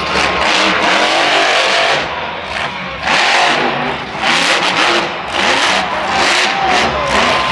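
Monster truck's supercharged V8 engine revving hard in repeated surges as the truck charges and launches over a dirt jump.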